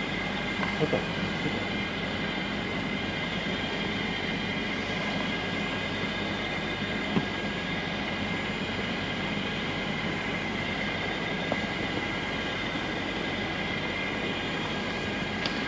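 Hot wedge geomembrane welder running steadily, its drive motor giving a constant whine with several steady tones, with a few short clicks over it.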